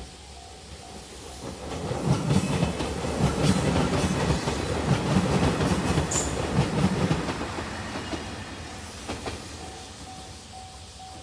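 A JR Shikoku 2700 series diesel limited express train passes over a level crossing. Its engine noise and the rapid clickety-clack of wheels on the rails swell in over about two seconds, stay loud for about five seconds, then die away. The crossing's warning bell dings steadily at the start, is drowned out by the train, and is heard again near the end.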